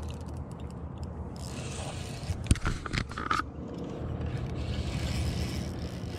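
A spinning reel worked against a fish on a bent rod, with rustling and scraping of a jacket sleeve right at the microphone over a steady low rumble. A few sharp clicks come about two and a half and three seconds in.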